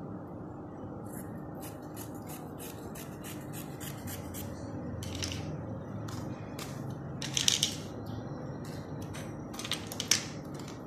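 Scissors snipping through cotton cloth in a quick run of crisp cuts, then the cloth rustling as it is lifted and shifted by hand, loudest about two-thirds of the way through. A steady low hum lies underneath.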